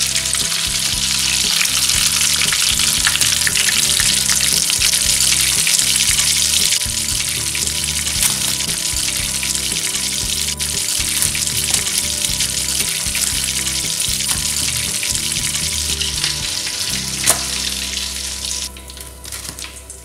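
Hot oil sizzling and crackling steadily around breadcrumb-coated chicken and cheese balls deep-frying in a pan. The sizzling drops away about a second and a half before the end.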